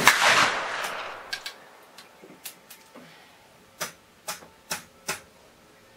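A shot from a .44 calibre Great Gun percussion double rifle loaded with black powder, right at the start, its report ringing and echoing away over about a second and a half. About seven short, sharp clicks follow over the next few seconds.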